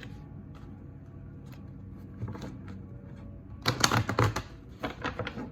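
Tarot cards being shuffled by hand: quiet at first, then a fast patter of clicking card edges, loudest a little past halfway and again near the end.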